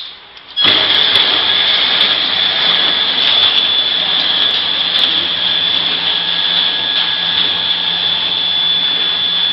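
Spoon packing machine (horizontal flow-wrapper) starting up: a click as its start button is pressed, then about half a second later the machine starts abruptly and runs loud and steady with a constant high-pitched whine over its mechanical noise.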